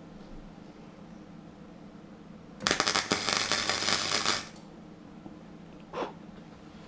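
MIG welder arc crackling for about two seconds as a short weld goes onto the steel leg of the engine's oil pickup, then a brief click near the end.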